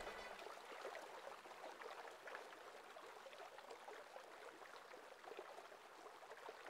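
Faint, even trickle and babble of running river water.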